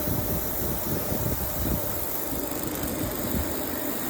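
Steady running hum of automatic welding machinery, an even mechanical noise with a faint constant tone and no distinct strikes.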